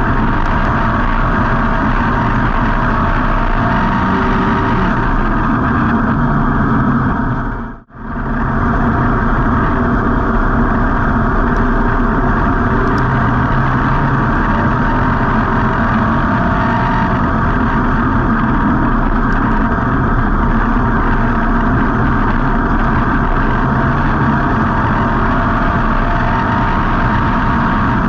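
Street stock race car's V8 engine running steadily, heard from an on-board camera inside the car, with the sound briefly dropping out about eight seconds in.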